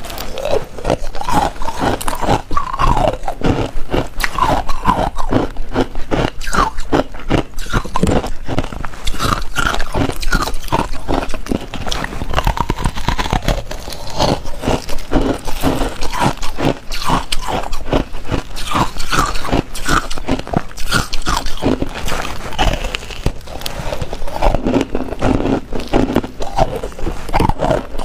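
Close-miked biting and chewing of frozen ice: a dense run of crisp crunches and cracks as the ice breaks between the teeth, with wet mouth sounds.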